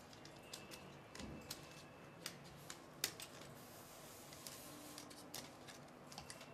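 Faint scattered clicks and taps of a carbon-fibre tube being worked into the metal clamp on a camera gimbal's centrepiece, with one sharper click about three seconds in.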